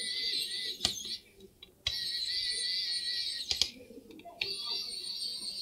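Electric precision screwdriver driving the screws of a laptop CPU heatsink: three runs of a high motor whine, each a second or two long, with sharp clicks between them.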